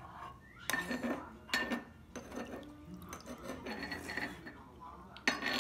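Tableware clinking during a meal: a ladle and utensils knock against earthenware dishes. There are a few sharp clinks, about a second in, again shortly after, and once near the end.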